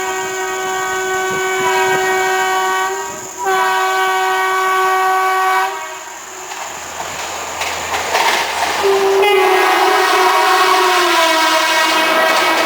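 WCAM2P electric locomotive's horn sounding long multi-note blasts: two blasts back to back, then a stretch of the train's running noise, then another long blast that falls slightly in pitch partway through. Wheels clatter on the rails underneath.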